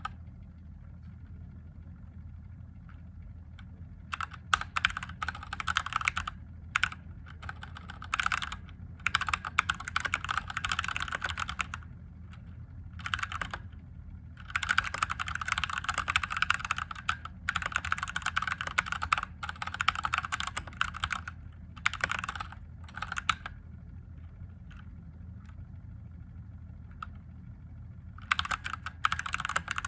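Mechanical keyboard with Gateron Yellow linear switches being typed on in runs of rapid keystrokes, broken by pauses of a few seconds, over a faint steady hum.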